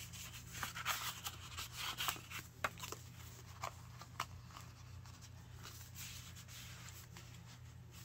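Paper pages and cards of a handmade junk journal being turned and handled: light rustles and small taps, busiest in the first half and sparser later, over a steady low hum.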